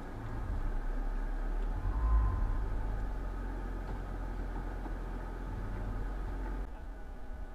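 4x4 vehicle's engine running at low speed on a rough mountain trail, a steady low rumble that swells briefly about two seconds in.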